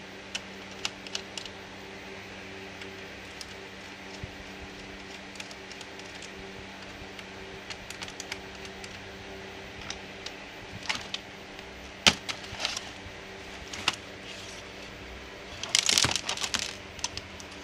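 Scattered clicks and clacks of a laptop's plastic case and parts being handled during disassembly, with one sharp knock about twelve seconds in and a quick flurry of clicks near the end. A steady low hum runs underneath.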